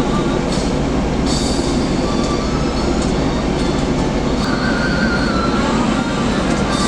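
Steady road and engine rumble inside the cabin of a Scania K410 coach on the move, with faint high squeaks coming and going.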